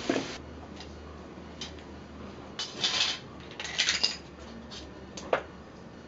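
Wooden oak barrel staves clattering and knocking against one another as they are picked up from a stack and stood on end. The knocks come in three short clusters in the second half.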